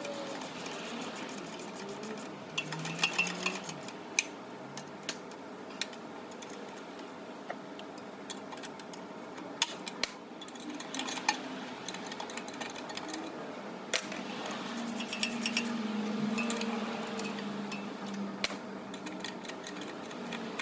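Hand tools and metal parts clinking, tapping and knocking now and then during repair work on a Hummer H2 engine, over a steady background hum.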